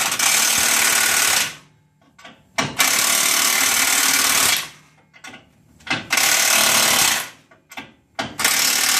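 Impact wrench running in repeated bursts of about one to two seconds, with short pauses between, as bolts are run down tight.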